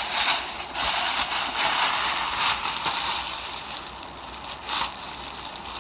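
Plastic shopping bags rustling and crinkling as they are handled, an irregular crackly noise that comes and goes in waves.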